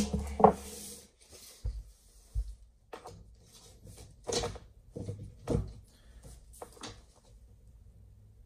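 Irregular knocks and clunks, as of wooden doors and their hardware being handled. The two loudest come just at the start, over a short steady hum that stops about a second in. About a dozen lighter knocks follow over the next six seconds before it falls quiet.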